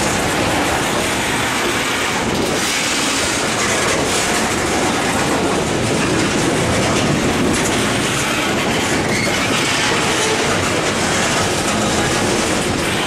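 Freight train of tank cars rolling past, a steady loud rumble of steel wheels on rail with clickety-clack over the joints.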